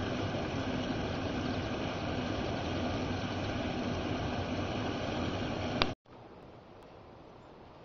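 Water spilling over a weir in a steady rush. The sound cuts off abruptly about six seconds in, leaving a much fainter, even hiss.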